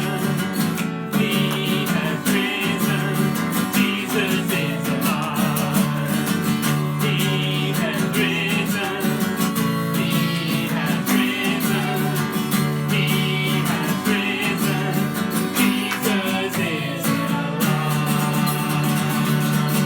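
Music led by a strummed acoustic guitar, playing steadily.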